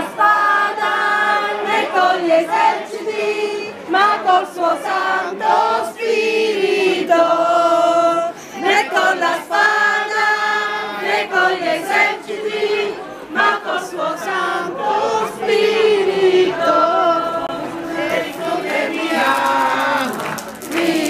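A crowd of men and women singing together as a group, in sung phrases with short breaks between them.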